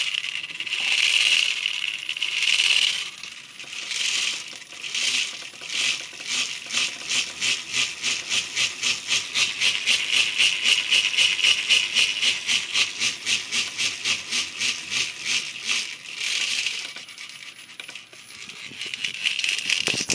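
HTD8M toothed timing belt running on 3D-printed PETG pulleys of a servo-driven lathe spindle at low speed, making a harsh, rhythmic rattling hum that pulses several times a second and fades near the end. The noise comes from belt teeth meshing in pulley grooves printed with no clearance; the builder suspects the tight fit, the hollow pulleys or squeaky PET plastic.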